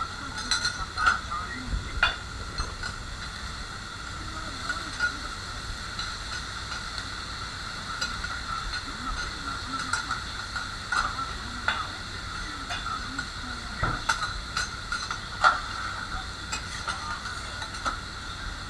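Okonomiyaki frying on a hot teppan griddle: a steady sizzle, broken by irregular sharp clicks and scrapes of metal on the iron plate.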